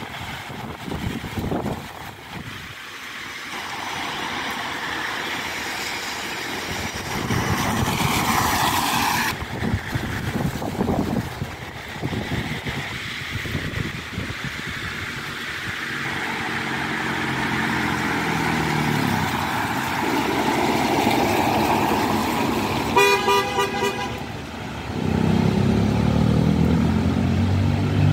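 Vehicles passing on a wet road, with a heavy engine running through much of the second half and a short horn blast about five seconds before the end.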